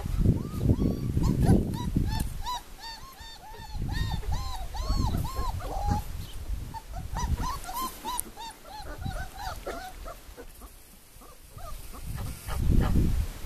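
Four-week-old white shepherd puppies whimpering in a string of short, high squeaks, each rising and falling, about two or three a second. There is a low rumble at the start and again near the end.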